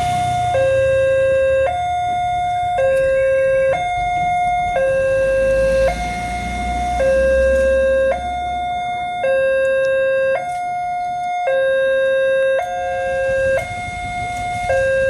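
Railway level-crossing warning siren sounding a steady two-tone hi-lo alarm, switching between a lower and a higher tone about every second. A faint low rumble sits under it around the middle.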